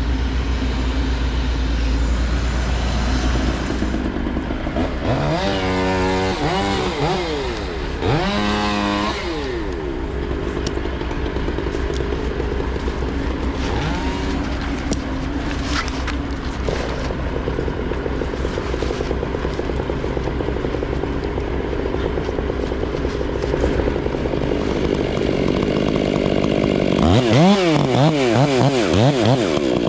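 Chainsaw revving up and dropping back three times, about five seconds in, about eight seconds in and near the end, over the steady drone of an engine running throughout.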